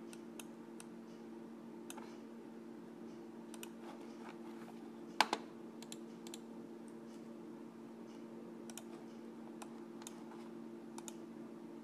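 Scattered clicks of a computer mouse and keyboard, some in quick pairs, with one louder double click about five seconds in, over a steady low hum.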